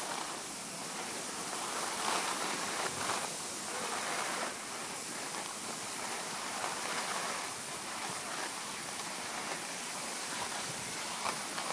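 Skis sliding over packed snow: a steady scraping hiss that swells and eases as the skis turn.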